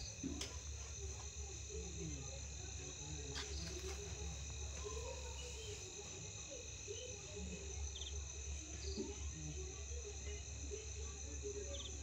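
Crickets calling steadily at night, several unbroken high trills layered together, over a low steady hum.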